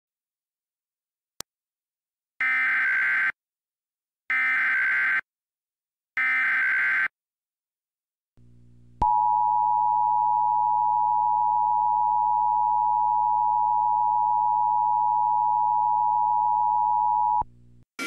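Emergency Alert System tones: three short bursts of the SAME digital header, each about a second long with a gap between, then the steady two-tone EAS attention signal held for about eight seconds before it cuts off.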